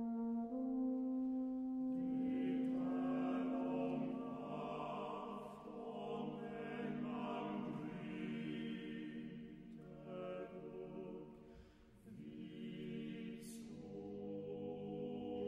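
Choir singing slow, long-held chords that shift every few seconds, with a brief hush just before the twelve-second mark.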